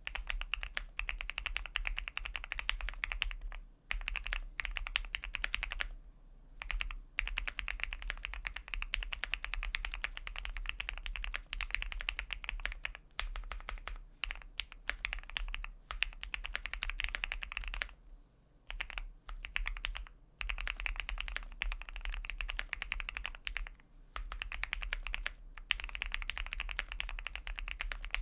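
Fast typing on a QK75 custom mechanical keyboard with a polycarbonate plate, lubed Gateron Milky Yellow linear switches and GMK keycaps: a dense run of keystrokes broken by short pauses every few seconds.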